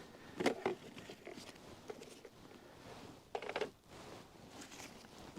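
Brief handling sounds as a small underwater drone and its bag are handled: short rustles and knocks about half a second in and again around three and a half seconds, with faint background noise between.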